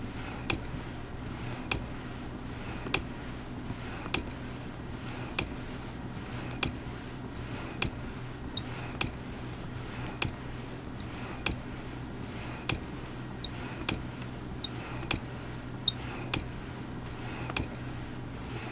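Wonder Core Smart ab exercise machine being rocked through repetitions, giving a short high squeak about once every second and a bit, with sharp clicks in between. The squeak is the abnormal noise of its dry moving parts, which silicone spray cures.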